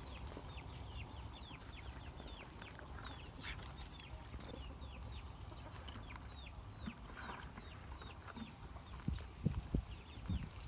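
Bird peeping: a steady run of short, high, falling peeps, two or three a second, with a few low thumps near the end.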